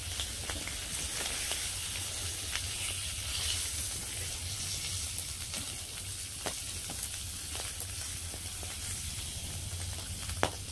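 Bacon sizzling in a small fry pan over a wood fire, a steady frying hiss with scattered light clicks.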